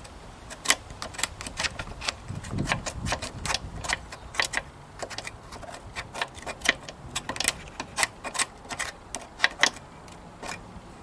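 Loose metal parts of a lawn mower clicking and clacking as they are worked by hand, irregular sharp knocks several times a second, with a brief low rumble about two seconds in.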